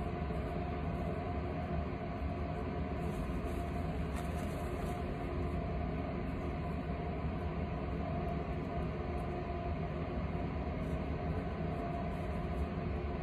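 Steady mechanical drone with a constant rushing noise and a faint hum, unchanging throughout.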